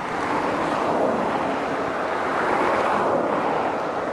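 Twin-engine jet airliner's engines at take-off power during the take-off roll: a steady, broad rush of jet noise.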